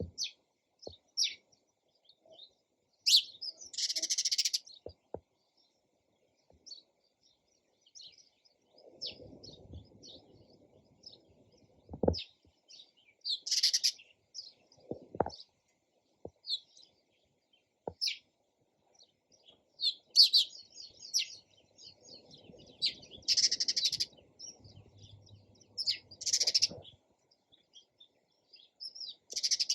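Sparrows chirping: many short, high chirps, with louder bursts of rapid chattering every few seconds. Two sharp clicks come about midway.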